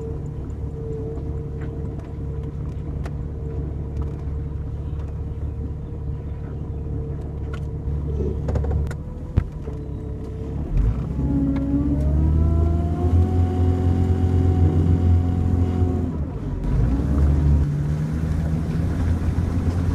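Jeep Cherokee driving, its engine running steadily with road noise. About halfway through there is a sharp knock; then the engine note rises as it accelerates and holds at the higher pitch, dipping briefly near the end.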